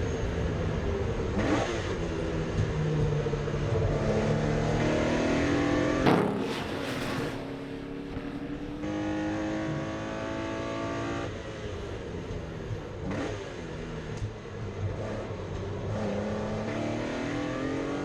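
Porsche 964 race car's air-cooled flat-six engine under hard acceleration on track, its pitch climbing and then dropping at each gear change, again and again. A short loud rushing burst comes about a third of the way in, and after it the engine sounds quieter.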